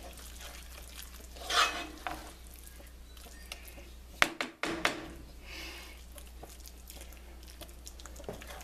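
Wooden spoon stirring a thick, creamy chicken, spinach and cheese mixture in a pan, with a few separate scrapes against the pan over a low steady hum.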